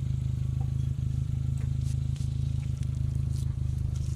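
Suzuki Vitara 4x4 engine running steadily at an even speed, a low continuous hum with no revving.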